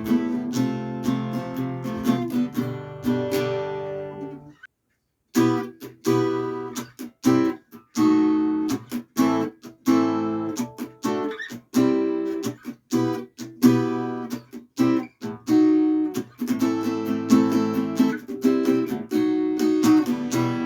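Kremona Zornitsa acoustic guitar being played: a run of strummed and plucked chords that ring out. The playing stops briefly about five seconds in, then starts again.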